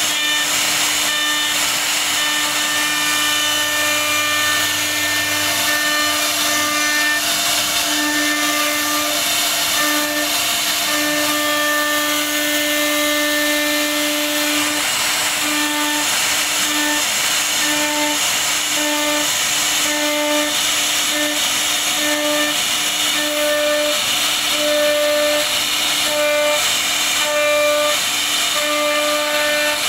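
CNC router spindle running as its bit carves a relief pattern into a wooden board. It makes a steady whine over a constant cutting hiss, and the whine breaks off and comes back in short stretches as the bit moves through the cut.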